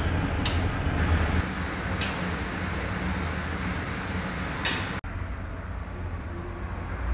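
A metal ladle clinking against a wok three times, over a steady low hum. The sound cuts off suddenly about five seconds in.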